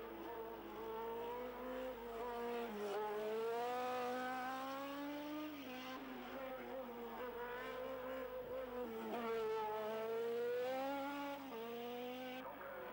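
Hill-climb racing car engine driven hard on a winding climb, revs rising through the gears, dropping at shifts and braking for the bends, then climbing again as it passes.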